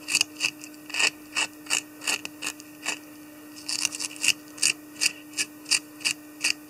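A small brush scratched rapidly through the hackle and dubbed body of a fly in the vise, about three short rasping strokes a second, teasing the fibres out.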